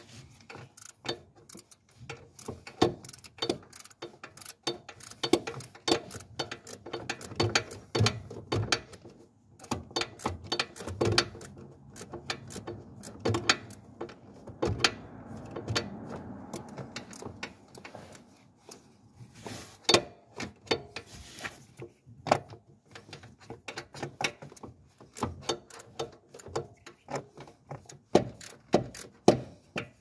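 Ratchet wrench clicking in irregular runs of short strokes, working a bolt during starter motor removal.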